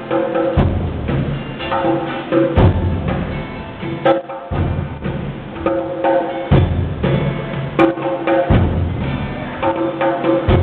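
Nyahbinghi drumming: a large bass drum thumps about every two seconds under quicker strokes on a smaller hand drum. An acoustic guitar holds chords over the drums.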